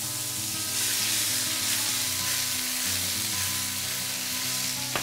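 Sliced courgettes sautéing in olive oil in a frying pan: a steady sizzle that grows stronger about a second in.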